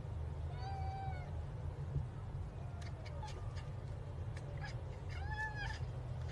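Domestic cat meowing twice, two short meows that rise and fall in pitch, about a second in and again about five seconds in, over a steady low hum.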